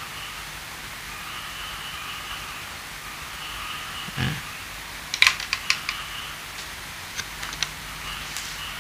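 Faint steady hum, a soft low thump about four seconds in, then a quick run of sharp clicks a second later and a few scattered clicks after that.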